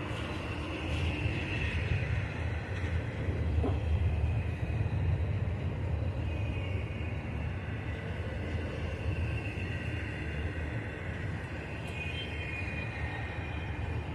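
Freight train cars rolling past on the rails: a steady rumble of wheels on track, with a faint higher ringing band above it.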